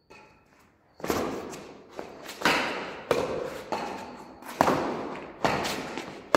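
Badminton rackets striking a shuttlecock in a rally: a quick series of sharp pops under a second apart, starting about a second in, each echoing off the surrounding concrete walls.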